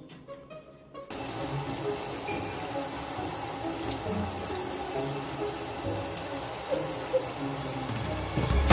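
Kitchen faucet running a steady stream into a stainless steel sink, starting about a second in, with a dull thump near the end.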